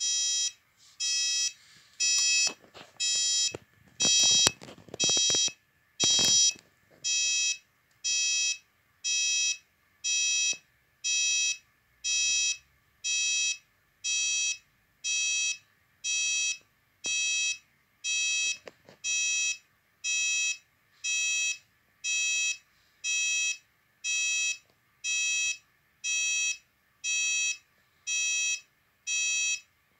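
Orisec CP-10 alarm keypad's buzzer beeping steadily, about one long pitched beep a second. Clicks and rustles from handling the keypad and its wiring come in the first few seconds.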